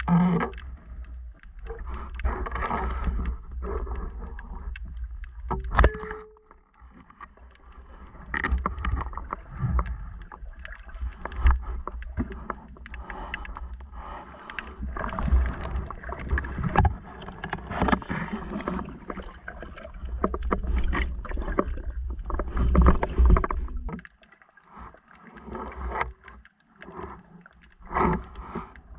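Muffled underwater water movement and gurgling, heard with the microphone underwater as a diver swims, with a heavy uneven low rumble and scattered knocks.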